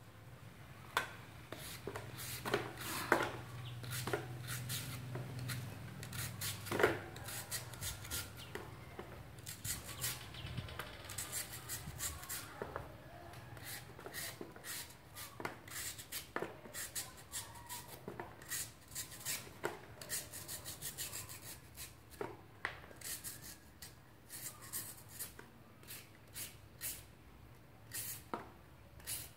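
Metal hand peeler scraping and shaving slices off a firm green mango, in many short, irregular rasping strokes with small clicks.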